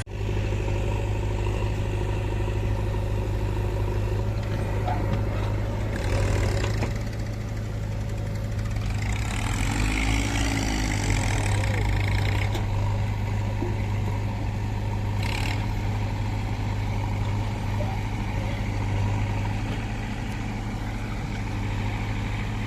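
Diesel engine of heavy machinery running steadily, with short rushes of noise about six seconds in and again from about nine to twelve seconds in.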